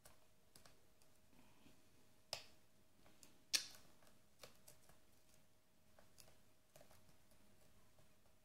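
Pin-tumbler lock being picked with a hook pick and tension wrench: faint scattered metallic clicks from the pick and pins, with two sharper clicks, one a little past two seconds in and a louder one about a second later. A faint steady hum runs underneath.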